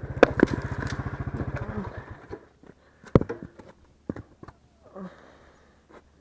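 Small motorcycle engine idling with an even, rapid putter, then switched off a little over two seconds in. Scattered clicks and knocks follow, the loudest a sharp knock about a second after the engine stops.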